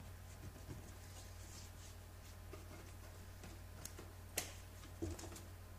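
Faint scratching and rustling of EPDM rubber membrane being trimmed and worked into the corner by hand, with a sharp click about four and a half seconds in, over a low steady hum.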